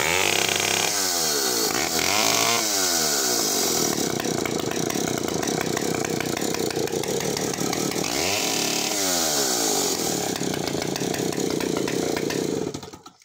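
Early Partner 90cc single-cylinder two-stroke chainsaw engine running loud at high revs. The revs drop and climb back about a second in and again around eight seconds, and the engine stops near the end.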